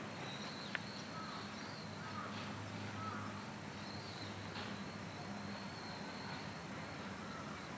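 Steady outdoor background hiss with a few faint, short bird chirps, and one sharp click a little under a second in.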